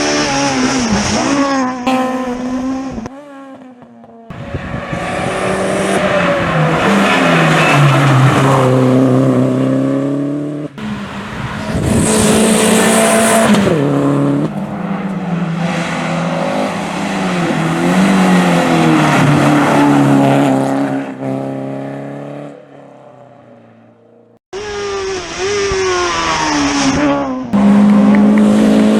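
Rally cars being driven hard on a special stage, one after another: high-revving engines climbing in pitch and dropping back at each gear change. The separate passes are cut together abruptly, and one fades away before the next begins.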